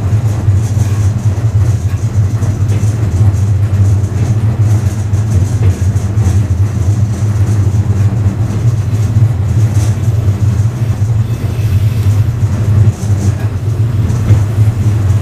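Loud, steady low rumble of a moving passenger coach heard from inside the vestibule at the rear of the last car: wheels running on the rails and the car body shaking as the train travels at speed.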